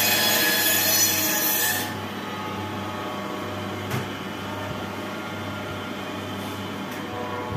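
Electric meat band saw cutting through mutton with a harsh, high rasp that stops abruptly about two seconds in. A low steady hum carries on after it, with a light knock about four seconds in.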